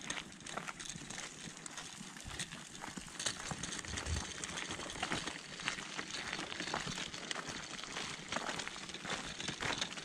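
Footsteps crunching on a gravel path, a continuous run of crisp, irregular crunches.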